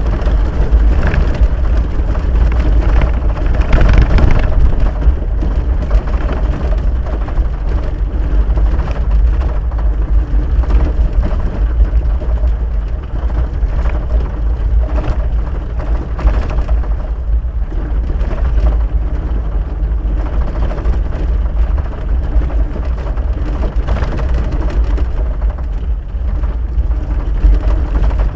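Cab noise of a Jeep Wrangler YJ driving on a rough gravel road, heard from inside the windshield: a steady low rumble of engine and tyres with frequent small knocks and rattles from the bumpy ride.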